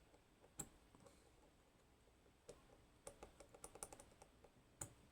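Faint clicks of a lock pick working the pins of a Goal P six-pin Japanese pin tumbler lock: a single sharp click about half a second in, a quick run of small ticks between about three and four seconds, and another click near the end.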